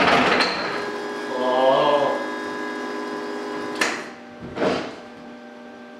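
1995 Cummins 12-valve diesel engine running loud, then shutting off about half a second in. A steady hum remains, with a brief voice and a sharp click followed by a short scuff about four seconds in.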